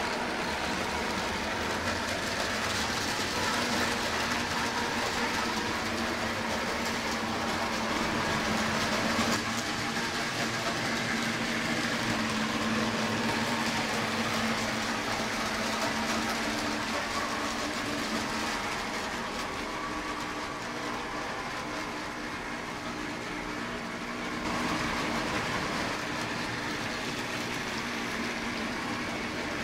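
Several small electric toy trains, a Lego train among them, running on their track loops: a steady whir of small motors with a rattle of wheels over the track.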